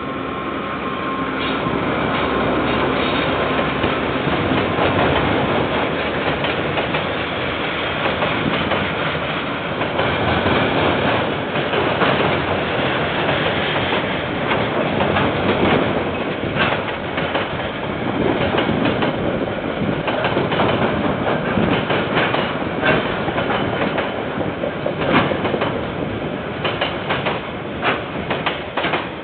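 Diesel-hauled container freight train passing. The locomotive goes by at the start, then a long run of container wagons rumbles and clacks over the rail, with sharper wheel clicks coming more often near the end.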